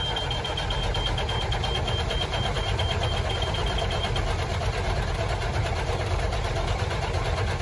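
Cat 3406E diesel being cranked over on its starter without firing, a steady even cranking that stops suddenly: a relative compression test, in which the starter's current draw rises at each cylinder's compression. The scope reads cylinders 1, 5, 3 and 6 a little low and shows current drops that the mechanic takes for a bad starter commutator. A steady high beep sounds over the first half.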